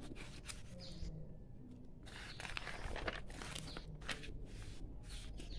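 Paper worksheet pages rustling as a page is lifted and turned over, in a few short spells of papery hiss through the middle.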